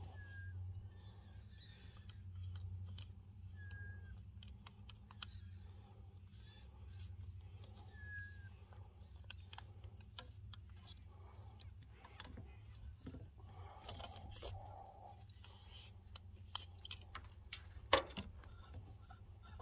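Scattered light clicks and knocks of metal handling as a rifle suppressor is unscrewed and a MagnetoSpeed chronograph is shifted from the suppressor to the barrel, with one sharper click near the end. Three short high chirps sound in the first half.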